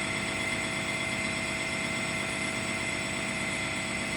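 Sawmill's engine or hydraulic power unit running steadily: a constant hum with several fixed tones that does not change.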